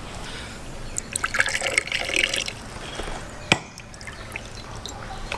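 Liquid being poured, trickling and splashing for a second or two, followed by a sharp knock about three and a half seconds in and another at the end.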